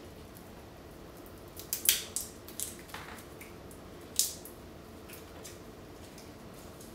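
A few faint crackles and clicks from hands working a foil-wrapped Maggi stock cube, crumbling it over the chicken. The sharpest clicks come about two and four seconds in.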